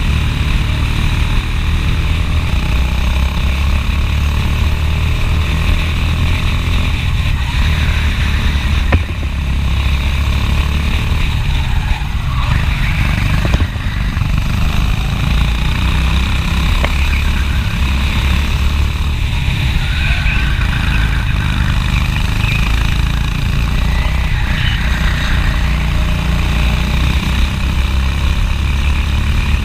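Racing kart's engine running at speed, heard from on board the kart, its revs rising and falling through the corners, with brief dips in loudness about nine and fourteen seconds in.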